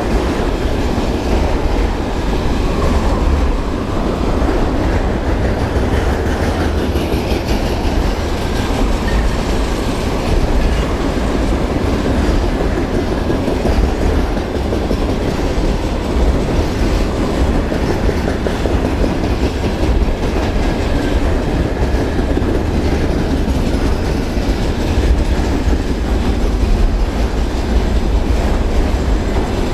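Train cars rolling past on the track, wheels clicking steadily over the rail joints.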